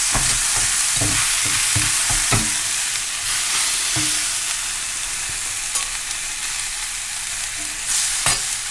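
Thin slices of beef sizzling in a hot cast-iron pan, with a metal spatula scraping and knocking against the pan as the meat is gathered and turned. There is a quick run of scrapes and knocks in the first couple of seconds, then single knocks about four seconds in and near the end, over a steady hiss.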